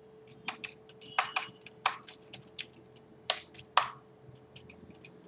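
Typing on a computer keyboard: irregular runs of key clicks, several a second, with a few harder keystrokes among them, over a faint steady hum.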